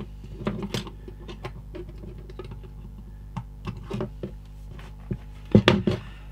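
Small clicks and taps of a kit circuit board and side cutters being handled on a workbench, with two louder sharp clicks a little before the end.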